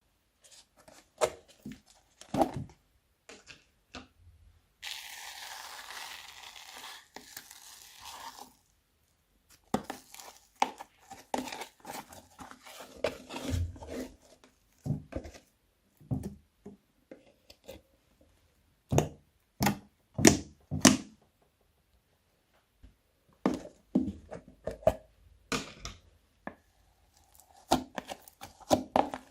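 Slime being mixed and squished by hand, giving a string of sharp, sticky clicks and pops. About five seconds in, a steady rustling noise runs for roughly three seconds.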